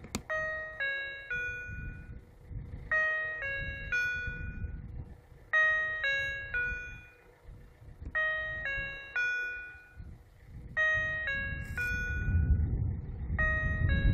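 Level-crossing warning signal's electronic bell: a short figure of several chime notes repeated about every two and a half seconds, warning that a train is approaching. A low rumble underneath grows louder near the end.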